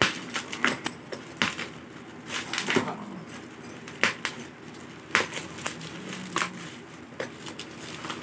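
Plastic parcel wrapping being torn open and crumpled by hand: irregular crinkles, crackles and sharp snaps.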